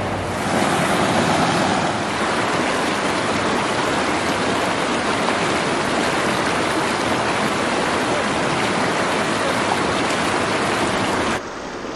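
Shallow rocky stream rushing steadily over riffles, a loud even rush of water that drops suddenly to a quieter rush near the end.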